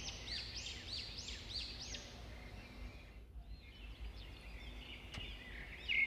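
A bird chirping in the background: a run of short, high, arched chirps about three a second, a pause of about two seconds near the middle, then more chirps, lower in pitch, near the end.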